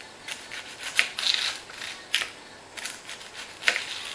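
Dry onion skin crackling as an onion is peeled by hand: a run of short, scratchy rustles with a few sharp clicks.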